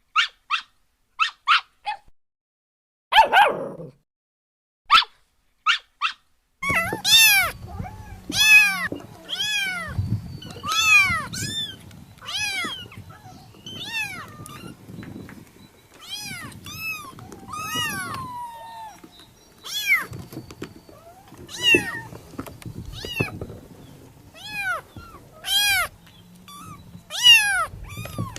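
A cat meowing over and over, high-pitched meows coming about once a second. The first six seconds hold only a few short, separate high notes before the meowing starts.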